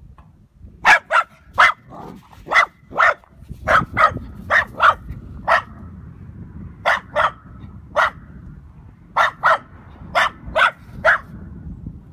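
Small dachshund barking at a horse across the fence: about eighteen short, high-pitched barks in quick bunches of two or three, starting about a second in.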